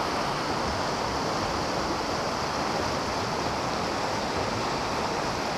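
Whitewater rapids of a mountain creek rushing steadily.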